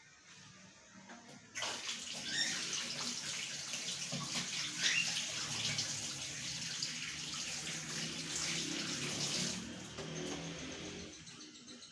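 Water running from a tap into a sink: turned on sharply about a second and a half in, runs steadily for several seconds, then drops away near the end.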